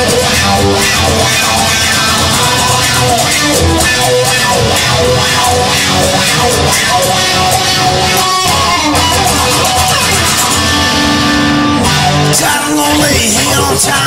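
Guitar-driven rock music, a full band mix with guitar and bass playing steadily.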